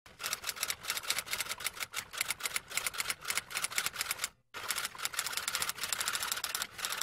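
Rapid typewriter-style clacking sound effect, about eight clicks a second. It breaks off for a moment about four and a half seconds in, then resumes.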